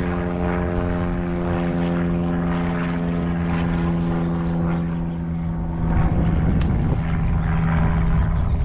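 Steady drone of a propeller airplane's engine, with many overtones; the higher ones thin out past the middle. Low wind rumble on the microphone grows louder near the end.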